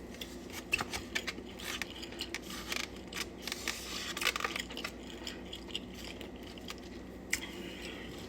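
Close-up chewing of fried chicken wings: irregular wet mouth clicks and small crunches over a faint steady hum.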